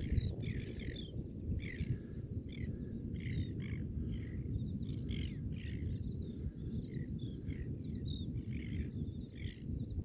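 A flock of birds calling over water, a quick run of short chirping calls a few times a second, over a steady low rumble.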